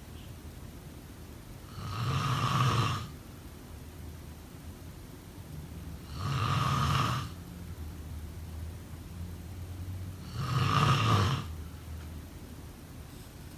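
A person snoring in sleep: three long snores, one about every four seconds, each lasting about a second.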